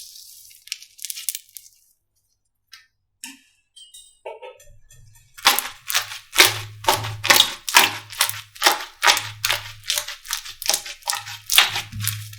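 Slime being pressed and squeezed by hand, making crackling, popping squishes. A few scattered clicks come first, then from about five seconds in a quick run of crackles, two to three a second, each with a soft low thud.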